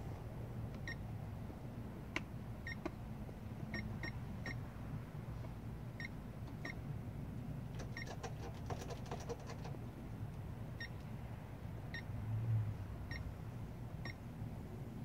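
Short electronic beeps, all at the same pitch and about a dozen of them at irregular intervals, from the radio gear of a Blade 200 QX quadcopter, with a quick run of faint clicks about eight seconds in. A steady low outdoor rumble runs underneath, swelling briefly near the end.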